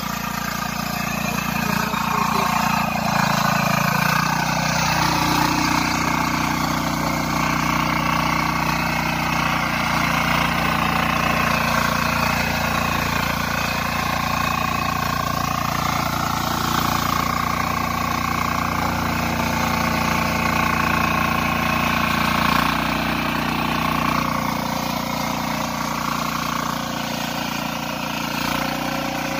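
Husqvarna TF 544 power weeder's single-cylinder air-cooled diesel engine running steadily under load while its tines churn through soil. Engine speed picks up about three seconds in and eases back near the end.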